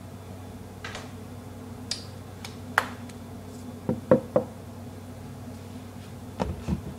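Scattered knocks and clatters of things being handled and set down on a kitchen counter: single knocks about one, two and three seconds in, a quick cluster of three around four seconds (the loudest), and two more near the end, over a steady low hum.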